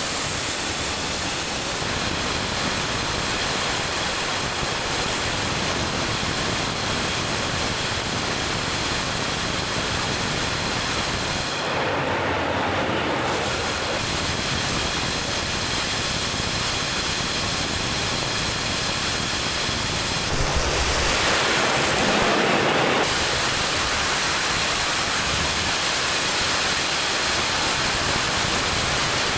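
Grain vacuum running steadily: a loud, even rush of air and grain with a faint high whine. The sound shifts briefly twice, about twelve seconds in and again about twenty-one seconds in.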